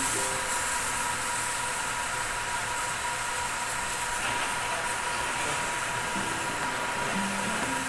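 Pressure washer running with a steady motor whine, its water jet hissing as it sprays onto air-conditioner units.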